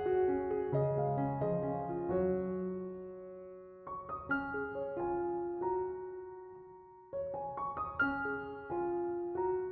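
Background music: soft piano played in slow phrases, groups of notes struck together and left to ring and fade.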